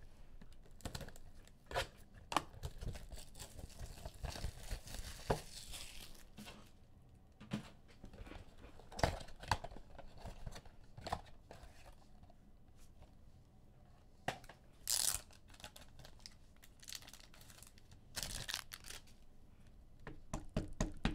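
Trading cards and their plastic packaging being handled on a table: intermittent rustling and crinkling with scattered light clicks and taps, and a few longer rustles about four seconds in, at fifteen seconds and near eighteen seconds.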